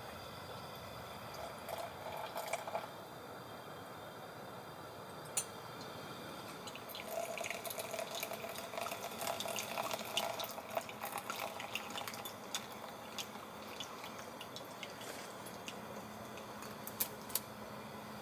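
Liquid splashing and dripping, with scattered small clicks and knocks.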